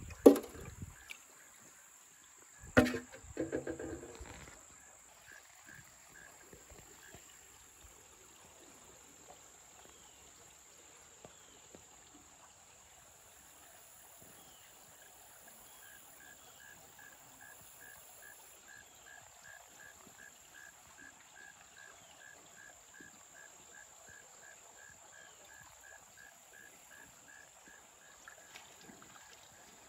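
Water splashing as a plastic box of crayfish is tipped out into a shallow creek, two splashes in the first few seconds. Then a faint outdoor background with a row of short chirps, about three a second, in the second half.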